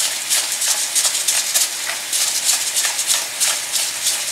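Hand-twisted pepper mill grinding black pepper in quick, repeated rasping strokes, over the steady sizzle of ground chicken frying in olive oil.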